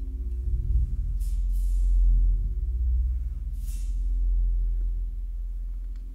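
Improvised percussion on a drum kit and hand-held cymbal: a deep, steady low drone with a fast pulse and a held ringing tone over it, broken by two short high swishes, about a second in and past three seconds in. The sound fades near the end.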